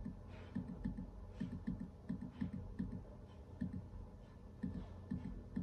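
Soft, irregular clicking of computer controls being worked, a few clicks at a time with short pauses between.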